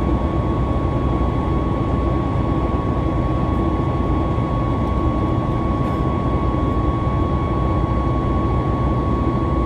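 Airliner jet engines running steadily after takeoff, heard inside the passenger cabin: a constant deep rumble and rush of air with a steady high whine over it.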